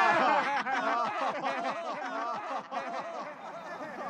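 Several voices laughing together in a group, loudest at the start and slowly fading.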